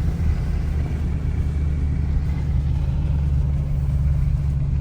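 Steady low rumble of a Dodge Scat Pack's 6.4-litre HEMI V8 and its tyres on the road while cruising, heard from inside the cabin.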